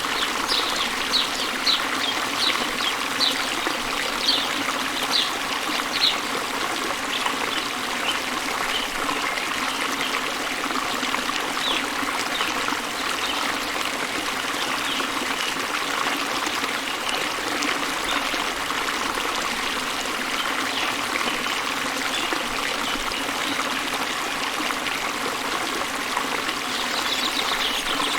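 A small waterfall spilling into a river: a steady rush and splash of flowing water. A bird sings short high chirps, one or two a second, over the first several seconds, then fainter and sparser.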